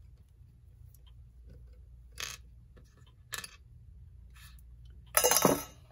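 Hand work on the clock's set knob and stem with a vise grip: two short scraping clicks, then a louder clatter lasting about half a second near the end.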